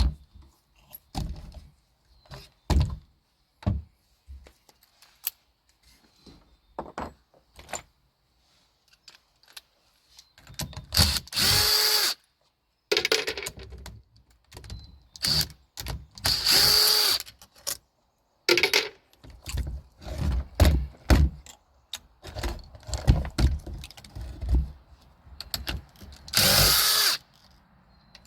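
Power drill running in about five short bursts of a second or less, as screws and parts come out of a garage door opener being taken apart. Clunks and knocks of the parts being handled fall in between.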